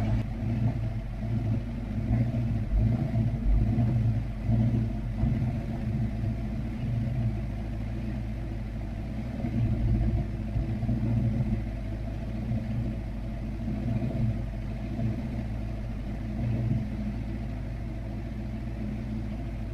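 Foxbody Mustang engine idling on a freshly installed MegaSquirt 2 ECU, a steady low hum that swells and dips a little. It is running rich, around 11.9 to 12 air-fuel, while the idle cells of the fuel (VE) table are lowered, and the tone changes with each edit.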